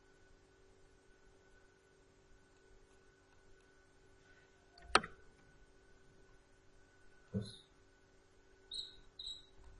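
A few isolated computer mouse and keyboard clicks over a faint steady hum: one sharp click about five seconds in, a duller knock a couple of seconds later, and two light clicks close together near the end.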